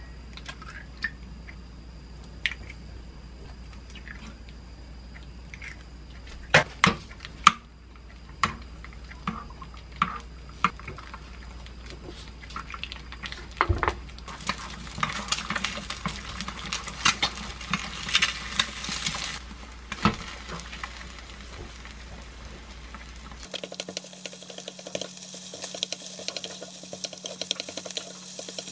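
Eggs cracked against the rim of a square non-stick pan with a few sharp knocks, then beaten and stir-fried with konjac rice in oil: a wooden spoon scrapes and taps against the pan over a sizzle, busier from about halfway through.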